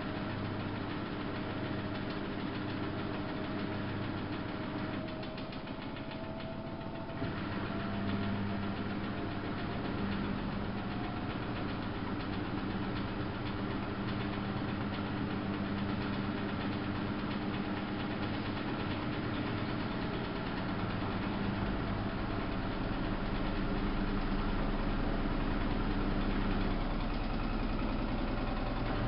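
Samsung WF71284 washing machine running, a steady mechanical hum with a motor tone that rises slowly over the first several seconds.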